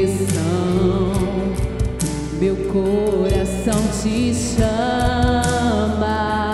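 A woman singing a Christian worship song into a handheld microphone over instrumental accompaniment, holding long, wavering notes without clear words.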